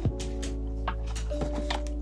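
Background music of steady held notes that shift in pitch, with about four sharp clicks.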